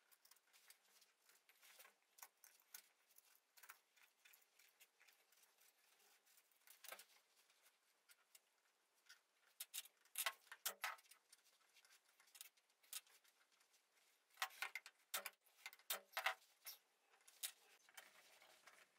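Faint rustling and scratching of upholstery fabric being handled, with louder clusters of crinkly rustles about ten seconds in and again in the last few seconds.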